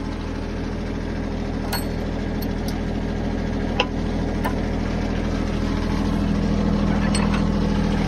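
Branson 2610H tractor's three-cylinder diesel engine idling steadily, with a few sharp metal clicks, the loudest about four seconds in, as the pin on the BH100 backhoe is pulled by hand.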